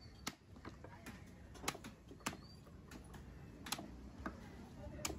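Heavy knife chopping yellowfin tuna head pieces on a wooden chopping block: about five sharp knocks at irregular intervals.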